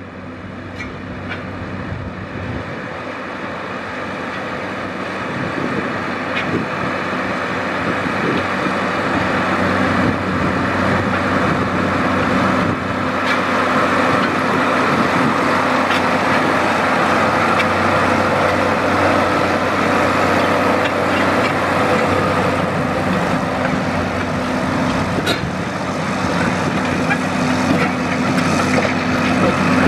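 John Deere 4850 tractor's six-cylinder turbocharged diesel engine running steadily under load while pulling a Landoll 6230 disk through the soil. The sound grows louder over the first ten seconds or so, then holds steady.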